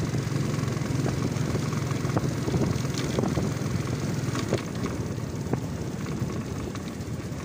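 Small motorcycle's engine running steadily while riding, under wind and road noise, with scattered light clicks and rattles. It gets a little quieter in the second half.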